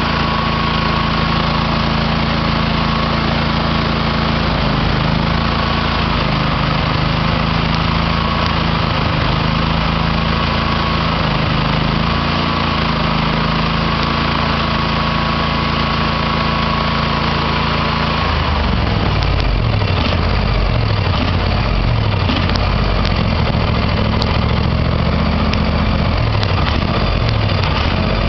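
Small engine on a piece of farm equipment idling steadily. About two-thirds of the way in, its speed starts wavering up and down and keeps hunting unevenly, an uneven run that the owner puts down probably to a carburetor needing cleaning.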